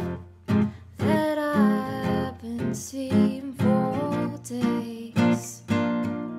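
Strummed acoustic guitar playing a song, with a voice singing a melody over it from about a second in.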